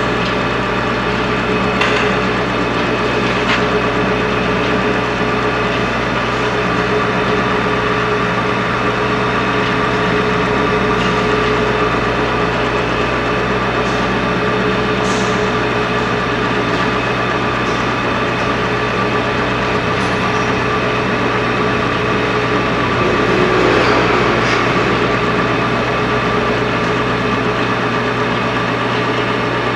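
Steady machine hum of a brake shoe projection seam welding machine running in automatic, with a few faint clicks. It swells slightly about two-thirds of the way through.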